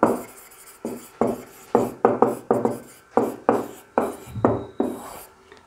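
Marker pen writing on a whiteboard: a run of short strokes, two or three a second, stopping shortly before the end.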